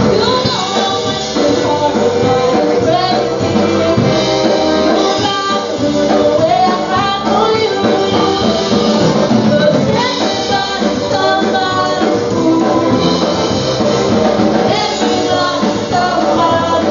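Live polka band playing amplified dance music, led by accordion, with a singer over a steady beat.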